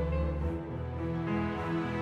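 Background music: slow instrumental piece of held notes and chords changing every half second or so.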